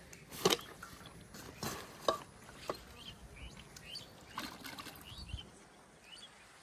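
Several sharp knocks and small splashes in the first three seconds, then faint short bird chirps repeating for a couple of seconds.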